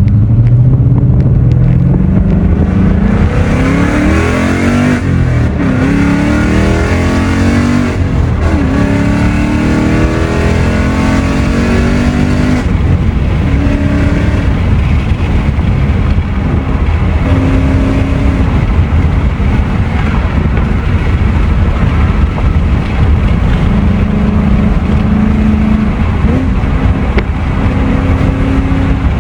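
2020 Mustang GT's 5.0-litre V8 through aftermarket valved mufflers, accelerating hard: the exhaust note climbs in pitch over the first few seconds, with drops like gear shifts about five to eight seconds in. It then settles into a steady, loud cruise.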